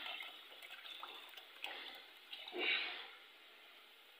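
Milk poured from a steel bowl into a pot on the stove, a liquid splashing and gurgling that swells about one and a half and again about two and a half seconds in, then dies away.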